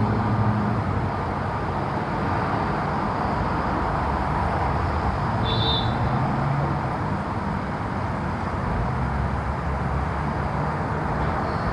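Steady outdoor background noise, an even hiss like distant traffic, with one short high chirp about halfway through.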